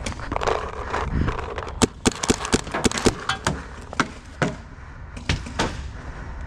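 Paintball markers firing: a rapid string of sharp shots, several a second for about two seconds, then a few scattered single shots.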